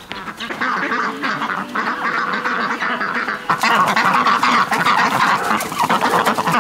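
A flock of domestic ducks quacking together, many calls overlapping into a dense chatter that grows louder about halfway through.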